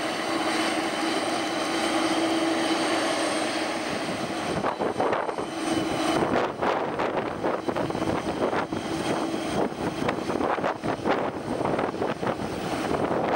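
Boeing 747-400 jet engines running as the airliner rolls along the runway, a steady whine with several held tones. From about four and a half seconds in, wind buffets the camera's built-in microphone in uneven gusts over the engine noise.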